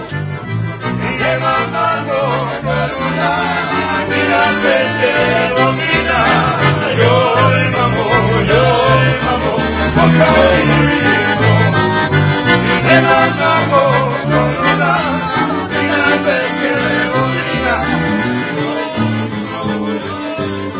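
Lively accordion music: bass notes pulse in an even rhythm under a wavering melody, growing louder over the first few seconds.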